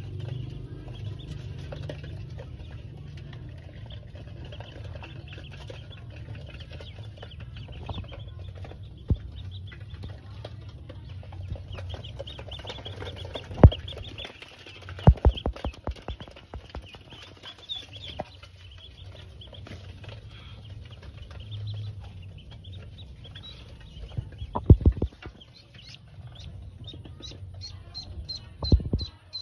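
Pekin ducklings peeping over and over in short high chirps, running into an even string of peeps near the end. A few sharp loud knocks break in, a cluster around the middle and more near the end, over a low rumble.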